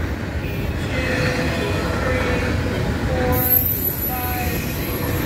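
Double-stack intermodal container cars rolling past close by: a steady rumble of steel wheels on rail, with thin, wavering squeal tones from the wheels at several pitches. A faint high whine joins about three seconds in.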